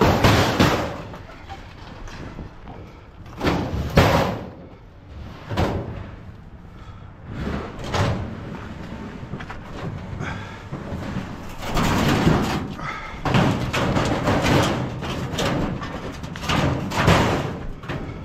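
Metal scrap being unloaded off a trailer, with a steel filing cabinet among it: a series of loud bangs and thuds in the first half, then longer stretches of clattering and scraping.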